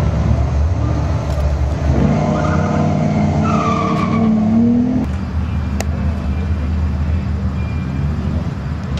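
Dodge Ram Rumble Bee's Hemi V8 accelerating hard on a drag strip run, its note rising over a few seconds. About five seconds in it cuts off abruptly, giving way to a steady low engine idle.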